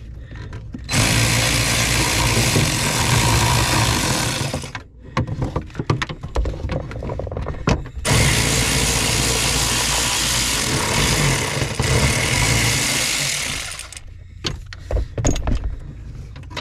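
Cordless electric ratchet running in two long spells, starting about a second in and again around eight seconds, spinning off the nuts that hold the clutch master cylinder to the firewall. Short clicks and rattles of the tool and loose nuts come between and after the runs.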